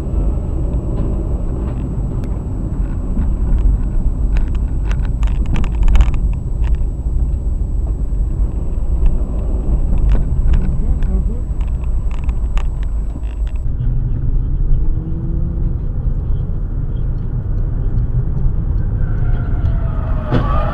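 Road vehicle noise from a dashcam: a steady low rumble of engine and tyres, with a scatter of sharp knocks and clicks through the first two-thirds. A thin high whine runs alongside until the sound changes abruptly about two-thirds of the way through.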